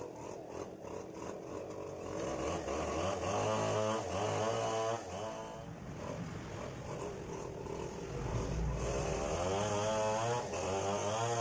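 A motorcycle engine running, its pitch rising and falling as it is revved, with two spells of revving: a few seconds in and again near the end.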